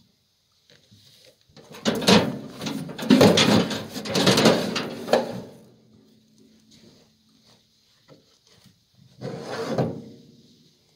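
A calf bawling twice: a long, loud call of about four seconds, then a shorter one near the end.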